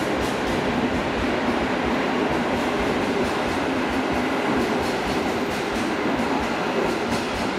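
PKP InterCity passenger coaches rolling past along a platform: a steady rumble of steel wheels on rail, broken by a run of irregular wheel clicks.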